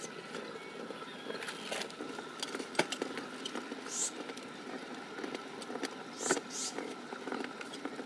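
Wet hands rubbing and smoothing soft clay on a potter's wheel: light scattered clicks and brief swishes over a low murmur of voices, with a faint steady hum behind.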